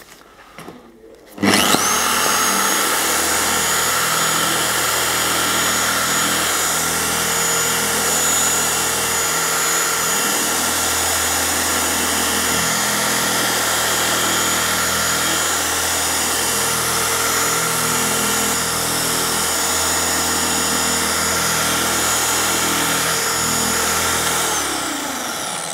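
Handheld machine polisher with a cutting microfiber pad starting up about a second and a half in and running steadily at one speed as it cuts compound into a car's painted bumper. It spins down near the end, its whine falling away. This is a heavy-cut pass to level texture in the bumper paint.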